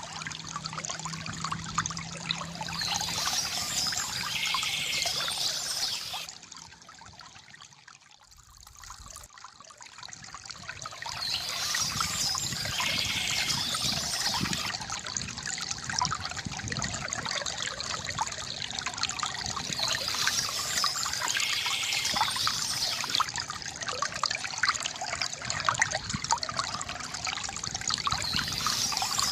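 Water trickling and pouring from a bamboo fountain spout, a steady gurgling flow that drops away for a few seconds about six seconds in before returning.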